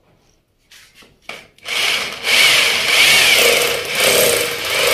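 A few faint clicks, then nearly two seconds in an electric drill with a long masonry bit starts boring into the plaster wall, running loud and steady with a wavering whine.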